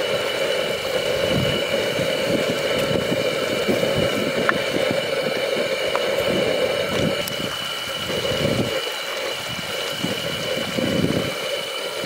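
Chicken curry simmering in a clay pot and being stirred with a wooden spoon, over a steady roar.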